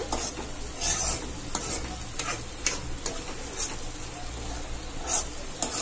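Steel spoon stirring grated carrot halwa cooking in ghee in a non-stick kadai, scraping across the pan with a stroke every half second or so.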